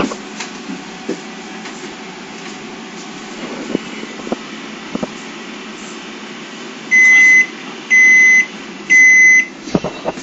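Mitsubishi microwave oven running with a steady hum and a few light clicks, then beeping three times, about a second apart, as its heating cycle ends.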